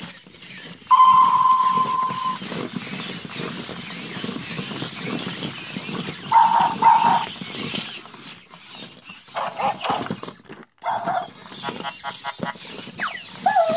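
WowWee Robopet robot dogs walking and moving: motors whirring and plastic legs clattering and clicking on the floor, with a long electronic beep about a second in and a quick double beep about halfway through.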